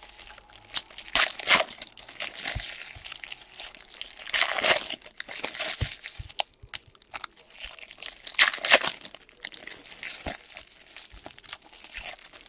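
Trading card pack wrappers being crinkled and torn open, with cards handled in between, in uneven rustling bursts that are loudest about a second in, around the middle and after about eight seconds.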